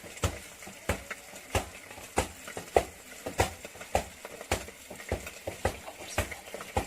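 Metal spoon or spatula stirring in a frying pan, knocking and scraping against the pan in sharp clicks, a little under two a second.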